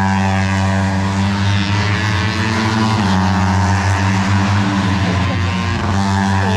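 Racing motorcycles lapping the circuit: a loud, steady engine drone with the pitch shifting briefly about three seconds in as bikes go by.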